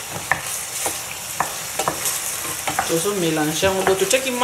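Okra and onions sizzling in hot oil in a stainless steel pan while being stirred with a spatula, which clicks against the pan several times. A voice-like sound comes in during the second half.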